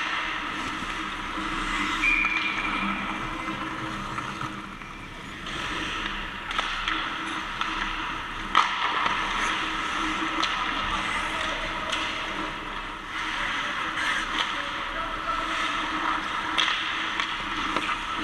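Ice hockey play: skate blades scraping the ice and sticks clacking on the puck and ice, with a sharp knock about eight and a half seconds in and faint shouts from players.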